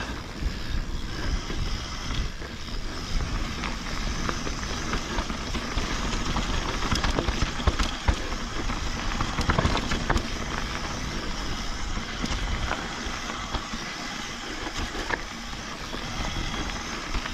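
Mountain bike rolling fast down dry dirt singletrack: a steady rush of tyre and riding noise, with a few sharp knocks from the bike over roots and bumps.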